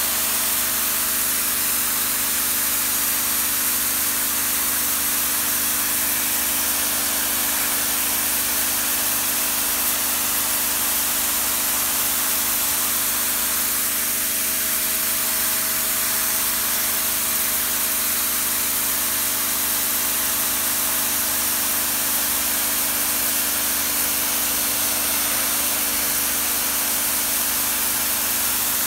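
Pressure washer running steadily, its motor and pump humming under the hiss of the high-pressure water jet spraying mildew and dirt off a concrete walkway.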